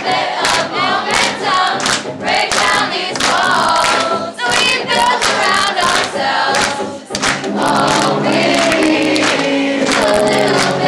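Live band performance: voices singing over electric guitar and a steady beat, with sustained low chords in the second half, heard loud and roomy from within the audience.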